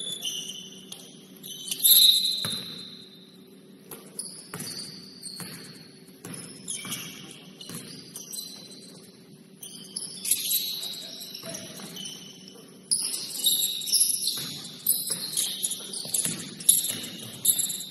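Basketball shoes squeaking on a gym court during play: many short, high squeaks, one loud one about two seconds in and a dense run in the last five seconds, with scattered thuds among them.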